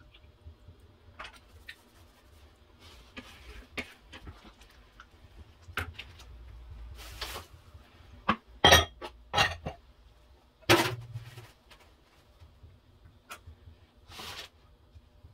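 Kitchen clatter: glass bowls clinking and a stainless steel saucepan being handled on a glass cooktop. There are scattered light clicks and a cluster of sharp knocks in the middle, the loudest about eleven seconds in.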